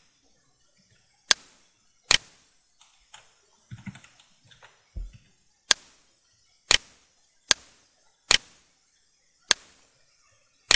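Computer mouse button clicking: about eight sharp single clicks, a second or so apart, with a few faint soft knocks in between.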